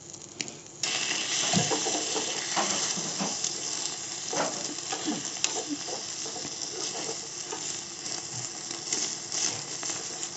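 An egg omelette sizzling in a small iron tadka pan, with a steel spoon scraping and pressing against it in the pan. The sizzle comes in suddenly about a second in.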